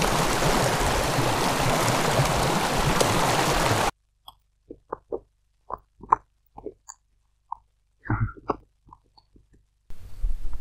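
Glacial meltwater running and splashing into a plastic hydration bladder, loud and steady, cutting off suddenly after about four seconds. Then near quiet broken by a scatter of short soft taps and clicks, with a faint hiss coming back near the end.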